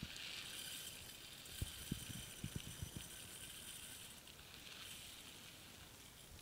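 Dry basmati rice poured into an empty stainless steel saucepan, the grains hissing on the metal, with a few light knocks of handling in the middle. The pouring thins out about four and a half seconds in.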